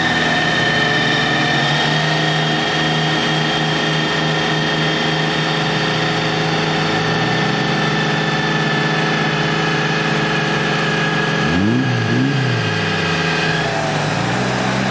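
Off-road 4x4 engine running under load. Its pitch steps up about halfway through, and it gives a couple of quick revs near the end. A steady high whine runs alongside it and stops shortly before the end.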